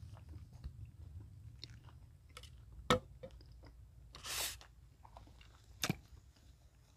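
Faint clicks and rustles of a seated hiker handling his hat, gloves and gear, with a sharper click about three seconds in and again near six seconds, and a short hissing puff about four seconds in.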